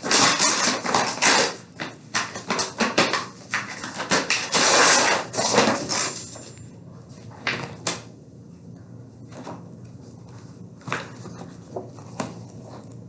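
Paper rustling and crinkling in repeated bursts as bid documents are handled and leafed through, dying down about six seconds in, followed by a few light knocks.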